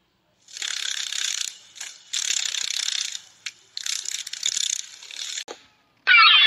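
Dry, rasping rattle of dragonfly wings in three bursts of about a second each, made of rapid clicks. A gull starts calling near the end.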